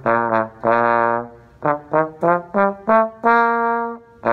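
A trombone played: a phrase of short, separately tongued notes at changing pitches, with two longer held notes, one about half a second in and one near the end.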